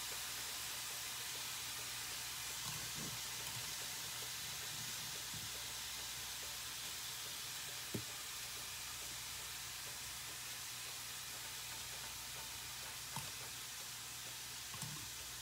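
Steady sizzling hiss of food frying in a pan on the stove. A few soft knocks sound on a plastic cutting board as pieces of kimchi are laid down, the sharpest about halfway through.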